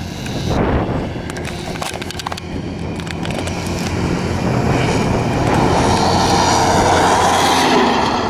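ATV (four-wheeler) engine running hard at speed, getting louder as the quad approaches up the road and passes close by near the end.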